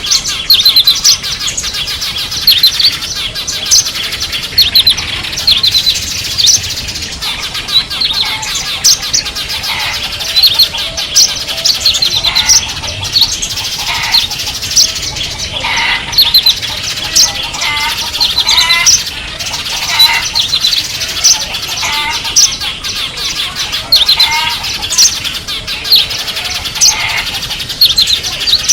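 Small songbirds chirping and calling together, a dense stream of quick high chirps with some lower falling trills mixed in.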